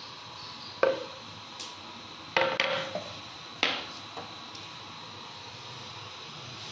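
A metal knife blade clinking against a ceramic plate as minced chicken is scraped off it: four sharp clinks in the first four seconds, then only a faint steady hiss.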